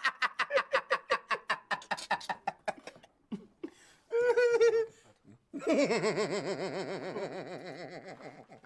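A man laughing hard: a fast run of short breathy laugh pulses, then a brief pitched burst, then a long wavering high laugh that fades away near the end.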